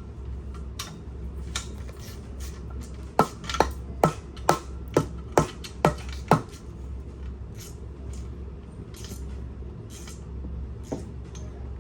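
Eight sharp metal-on-metal taps, about two a second, each with a short ring, while the pump motor is being assembled. A steady low hum runs underneath.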